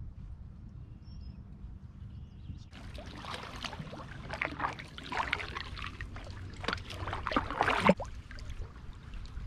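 Water splashing and dribbling around a canoe under way, from paddle strokes and the current. The splashing starts about three seconds in and grows busier, over a low steady rumble.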